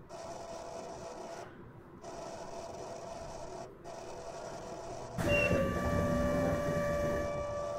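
Inside a Kyoto Municipal Subway 20 series car: a quiet steady hum, then about five seconds in the door buzzer sounds, one steady electric buzz lasting about two and a half seconds, the warning that the doors are closing.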